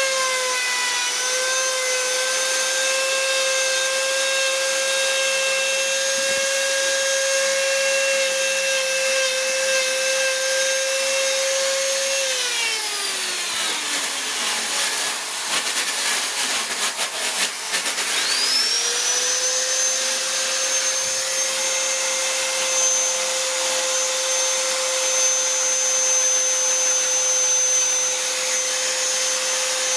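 Hand-held electric die grinder with a ball burr running at a steady high whine while it carves wood. About twelve seconds in it is switched off and winds down, followed by a few seconds of clicks and rattles. It is then switched back on and spins up quickly to the same steady whine.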